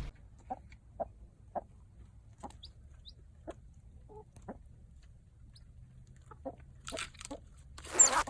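A series of short, faint clucking calls, roughly one a second, then a few louder noisy bursts near the end.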